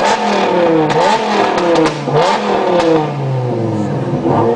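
Dodge Viper GTS's V10 engine revved in short throttle blips, the pitch shooting up and falling back about four times.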